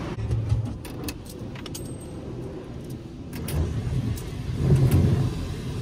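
Low rumbling noise that grows louder in the second half, with scattered light clicks.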